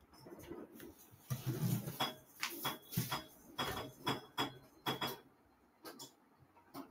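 Clinking and clattering of hard objects: a quick run of about a dozen sharp knocks, several with a short ring, stopping about five seconds in, then a couple of faint knocks.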